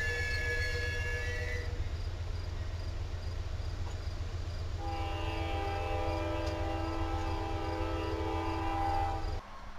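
Locomotive horn sounding over the low rumble of a passing train: one blast ends about two seconds in, and a second long blast, a chord of several steady tones, starts about five seconds in. Both horn and rumble cut off abruptly near the end.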